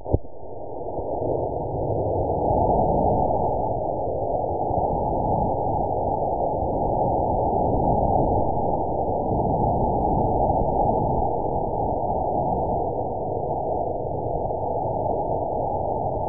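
Estes model rocket engine firing on a static test stand: a sharp crack as it ignites, then a steady rushing exhaust noise that builds over the first couple of seconds and holds. The burn appears slowed down, so the engine's short thrust stretches into a long, low rush.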